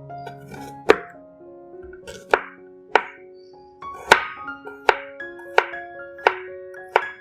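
Background music with piano-like notes, over sharp, uneven knocks of a knife chopping on a cutting board, about eight in all, coming closer together in the second half.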